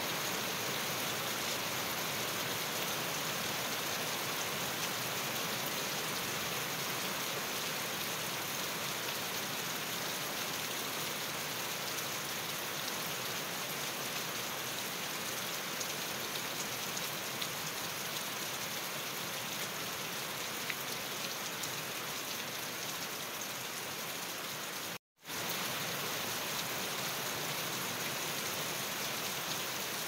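Steady rain falling on a leafy shrub and a lawn: an even, dense hiss. It cuts out for a split second near the end.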